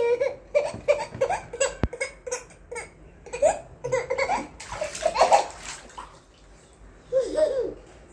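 A toddler laughing in a quick run of short bursts while splashing in a small inflatable paddling pool, with a louder splash of water about five seconds in.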